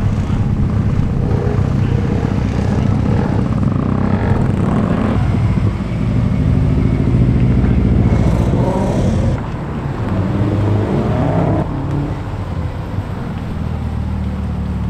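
Cars driving off one after another, engines revving as each pulls away. Among them are two turbocharged flat-four Subaru Imprezas and a Toyota Celica. The loudest pass comes near the middle, with the engine note rising and falling as the driver works the throttle.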